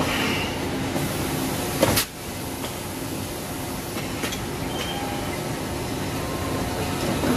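Extrusion blow moulding machine with its manipulator running: a steady machine noise, with a short loud hiss of air about two seconds in and a few faint clicks later on.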